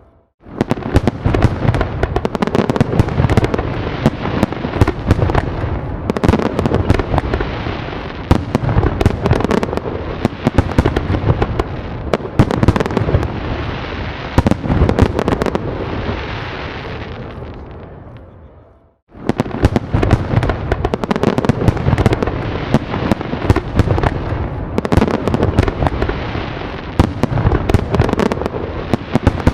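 Fireworks display: many bangs and crackles overlapping in a dense barrage. It starts abruptly, fades almost to nothing about two-thirds of the way through, then starts again abruptly.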